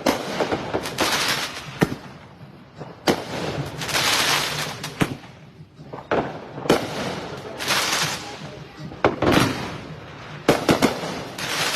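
Fireworks going off: sharp bangs every second or two, several of them followed by a second or more of dense crackling.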